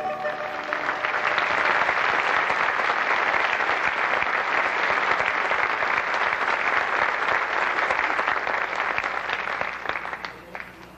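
Audience applause as the last notes of the dance music die away. The applause holds steady, then fades out near the end, leaving a few last separate claps.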